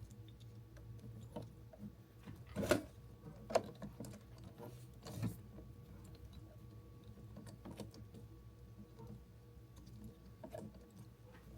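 A wrench working the 10 mm nut on a car battery's negative terminal: faint metallic ratcheting and clicking, with a few sharper knocks and scrapes a few seconds in and again near the end, over a faint steady hum.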